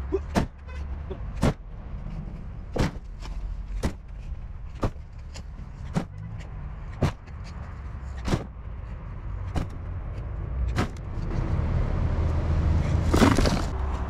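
A shovel digging soil and throwing it into a steel wheelbarrow: sharp clanks about once a second over a low steady rumble, with a louder rush of noise near the end.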